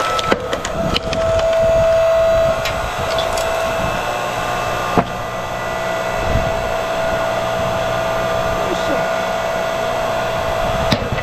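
TIYA 8-ton 2,300 W electric hydraulic log splitter running steadily, its motor and pump giving a constant whine as the ram works through a log. A few sharp cracks stand out, the loudest about five seconds in.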